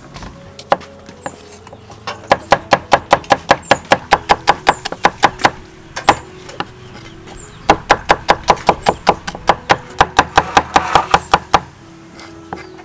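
Cleaver chopping shallots on a wooden cutting board: rapid, even knocks of the blade on the board, about six a second. There are two runs with a short pause between them, about two seconds in and again from about halfway.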